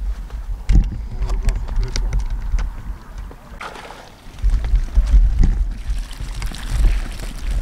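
Wind buffeting the microphone in gusts. Near the end there is a hiss of water draining from a wet mesh keepnet as it is lifted out of the water.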